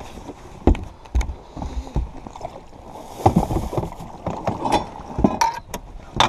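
Irregular knocks, thumps and scrapes on a bass boat's deck and gunwale as a landing net is grabbed and swung out over the side to net a hooked bass.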